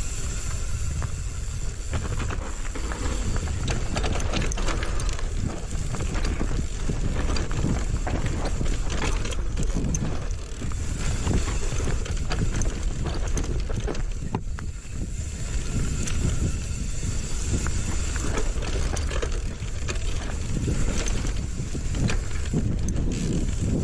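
Mountain bike riding fast down a rough dirt forest trail: a steady low rumble of tyres over the ground, with frequent rattles and knocks from the bike, and wind on the microphone.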